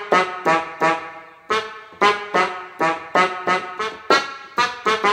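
Yamaha PSR-S670 arranger keyboard playing a quick melody on a stored registration voice: short, sharply struck notes, about three a second, each fading away, with one brief pause.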